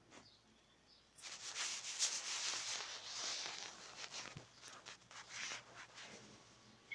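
Rubbing and rustling noise, like a hand or object brushing over carpet close to the microphone. It starts about a second in and runs in a dense scratchy stretch that eases off near the end.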